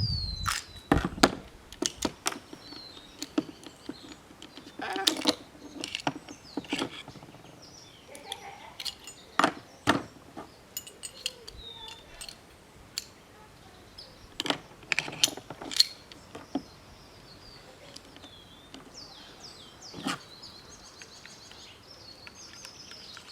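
Scattered sharp clicks and clacks of an airsoft Glock 17 gas pistol being taken apart by hand, its slide and parts knocking together at irregular intervals. Birds chirp in the background.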